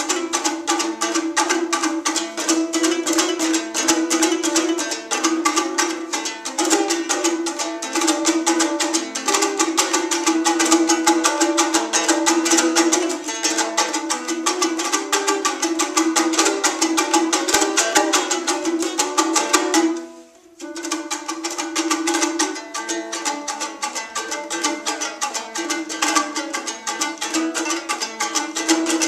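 Kyrgyz komuz, a fretless three-string lute, strummed in a fast, dense stream of strokes over a steady low note, playing a solo küü (instrumental piece). The playing breaks off for about half a second about two-thirds of the way through, then carries on.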